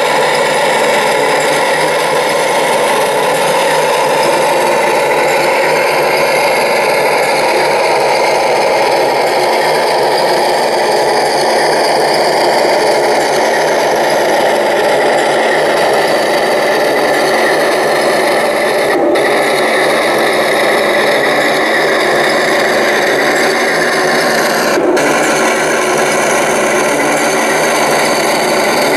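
1:16-scale RC tanks (Tiger II 'King Tiger' models) driving over gravel: a steady grinding of small electric drive motors and gearboxes, with the tracks rasping on the gravel.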